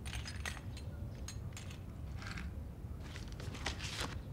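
Sheets of paper rustling as they are handled and leafed through, in a series of short bursts, over a low steady background rumble.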